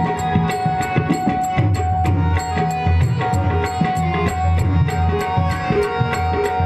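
Tabla playing in an instrumental passage of devotional bhajan music, its deep bass strokes under a steady held note, with bright metallic clicks about four times a second.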